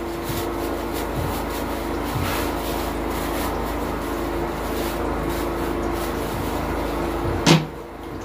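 Petrol generator running with a steady hum, with one sharp knock near the end.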